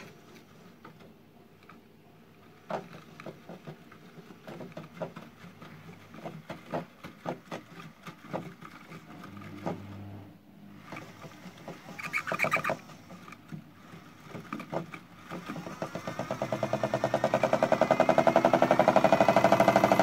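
Modified toy Miele washing machine: its drum turns slowly at first, with irregular knocks and clicks as the Raffaello candy wrappers tumble inside. Then, in the last few seconds, the motor speeds up into a spin, a rising whine that grows loud with a fast pulsing beat.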